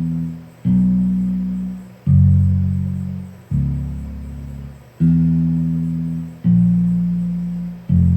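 A sampled bass sound from a phone beat-maker app playing a slow bass line: one loud, low note about every second and a half, each starting sharply and fading, with the pitch changing from note to note.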